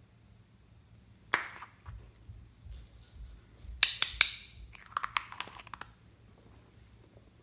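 Hollow red plastic toy ball being handled and pulled apart into two halves: sharp plastic clicks and cracks, one about a second in and two quick clusters around four and five seconds in.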